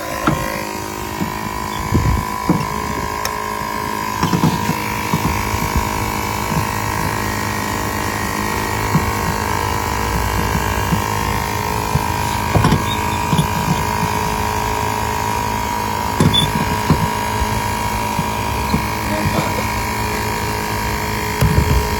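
A steady mechanical hum with several scattered knocks and clanks.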